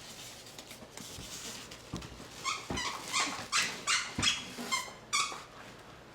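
A dog whining in a run of short, high-pitched cries, about two a second, starting about two and a half seconds in.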